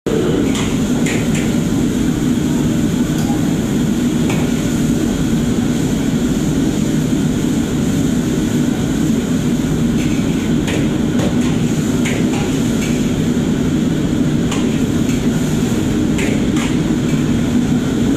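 Loud steady noise of a commercial wok station, its gas wok burners and overhead extraction hood running, with scattered sharp metal clinks of a ladle against a wok.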